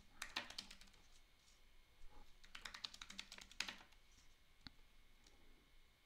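Faint computer keyboard typing: two quick runs of keystrokes, about a second each, followed by a single click a second later.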